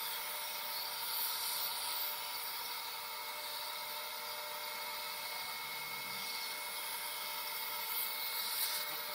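Steady hiss of dental surgical suction with a constant hum of operatory equipment; the hiss grows briefly louder near the end as the suction tip is held in the mouth.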